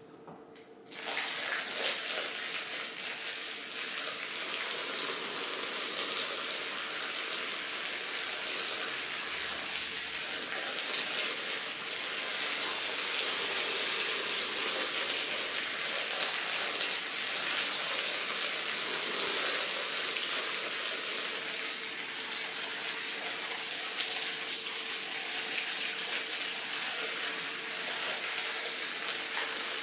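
Water spraying steadily onto a carpet as it is washed, starting suddenly about a second in, over a faint steady hum.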